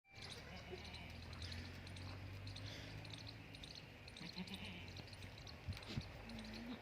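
Sirohi goats bleating faintly, with short calls about four seconds in and again near the end. Beneath them are a steady low hum and rapid high chirping.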